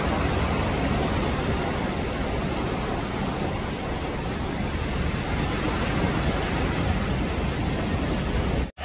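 Surf washing ashore mixed with wind on the microphone, a steady even rush with no clear engine note; it cuts off abruptly near the end.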